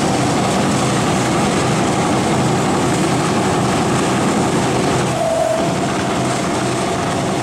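Double-head CNC leather punching machine running: a steady, dense mechanical noise with a low hum underneath. A brief higher tone sounds about five seconds in.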